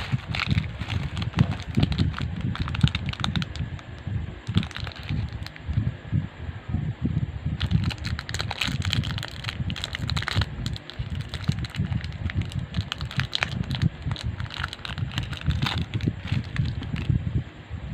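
Crinkling and crackling of plastic packaging handled and torn open by hand: a poly mailer bag, then a small clear plastic bag. Irregular rapid clicks over a steady low rumble.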